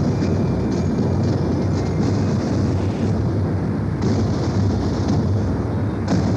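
A marching corps of drums playing side drums and bass drum together, loud and continuous.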